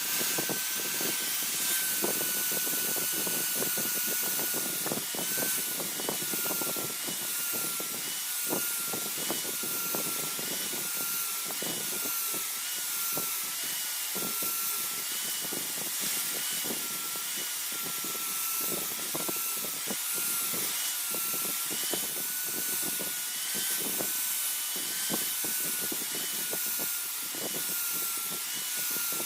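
Electric grinder grinding a steel blade made from car leaf spring: a steady motor whine that dips a little each time the steel is pressed on, over a scraping hiss.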